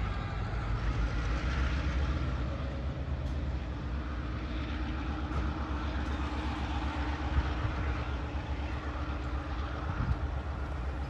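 Special railroad inspection train running away down the main line, a steady rumble of wheels on rail with no horn.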